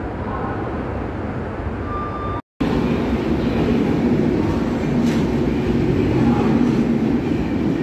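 Passenger train passing close on the adjacent track, its coaches and wheels rumbling by steadily and loudly. It follows a lower steady station rumble that breaks off abruptly about two and a half seconds in.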